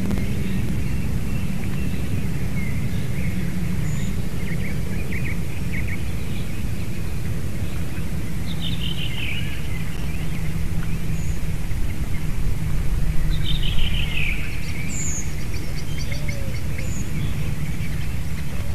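White-tailed eagle calling: series of high yelping notes that fall in pitch, heard several times, the loudest series about two-thirds of the way in. Under it runs a steady low rumble of wind and hum on the microphone.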